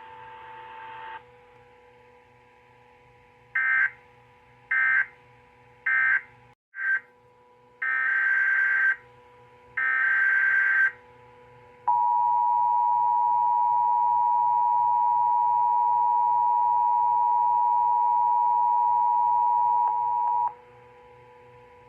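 Emergency Alert System data bursts: three short screeching bursts about a second apart, the end-of-message code closing one alert. Then a brief blip and two longer one-second bursts, the SAME header of the next alert. Then the steady two-tone attention signal (about 853 and 960 Hz) sounds for about eight seconds and cuts off, with a faint hum underneath.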